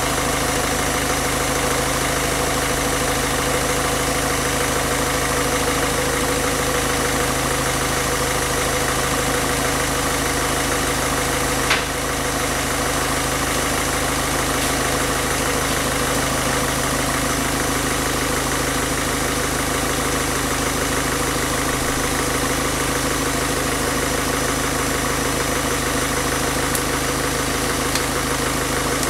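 Peugeot/Citroën 1.6 HDi diesel engine idling steadily while it runs on injector-cleaning fluid fed from a bottle plumbed into its fuel lines. A single sharp click about twelve seconds in.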